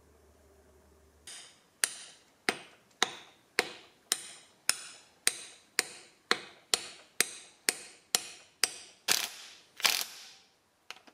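Steel hammer tapping a driver against the new crankshaft oil seal of a Honda MR50's engine case to seat it: about seventeen sharp, even metallic taps, a little over two a second. Near the end come two short bursts from a cordless impact driver on the crankshaft.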